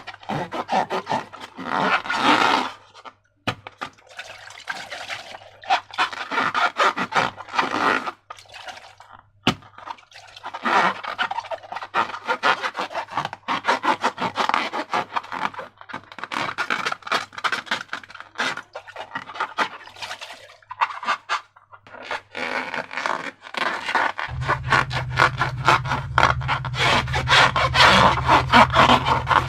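Slime being worked by hand or stirred, wet sticky crackling and scraping in repeated bursts. A steady low hum joins in near the end.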